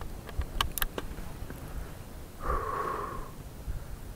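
A few light clicks, then one heavy breath, a person exhaling or snorting through the nose, about two and a half seconds in.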